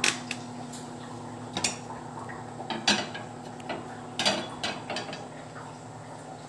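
Metal cookware being handled: a steel pot set down on a plate and a frying pan placed on a gas stove's burner grate, giving about six separate sharp knocks and clinks over a faint steady hum.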